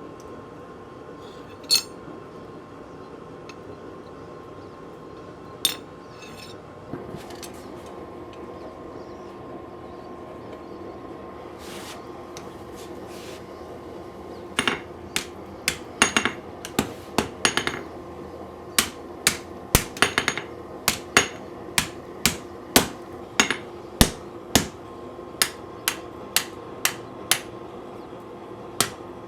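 Blacksmith's hammer striking steel on an anvil. There are a couple of isolated blows at first, then from about halfway a steady run of ringing strikes, about one to two a second, over a constant background hum.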